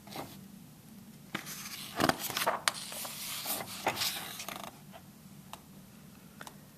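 Pages of a picture book being turned by hand: about three seconds of paper rustling and scraping, with a few sharp flicks, starting about a second and a half in.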